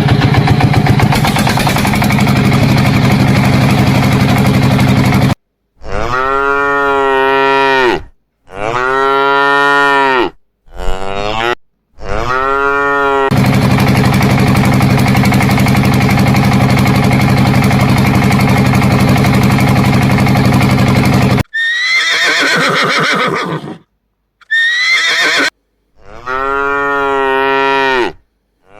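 A series of cow moos, each a long call that rises and falls, starting and stopping abruptly as if cut in as clips, with two shorter, higher calls near the end. They alternate with stretches of a steady engine running, at the start and in the middle.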